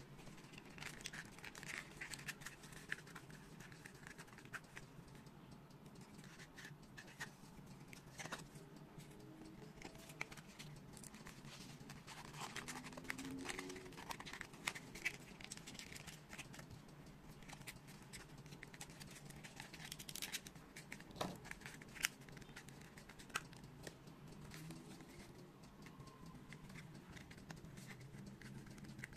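Faint scratching, rubbing and small clicks of foam-board 3D puzzle pieces being handled and pushed together by hand, in scattered irregular bursts.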